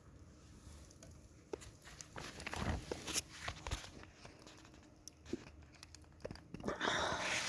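Campfire crackling with scattered sharp snaps and clicks. A louder rustling hiss sets in near the end.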